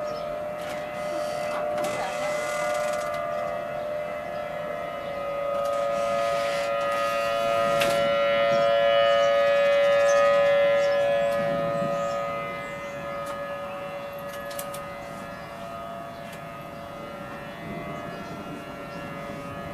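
Outdoor tornado warning siren sounding a steady tone, growing louder to a peak about halfway through and then fading back.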